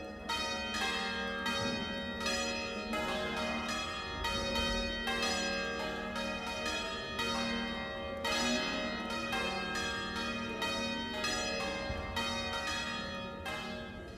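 Church bells ringing a run of strikes at changing pitches, about two strikes a second, each note ringing on. The ringing dies away near the end.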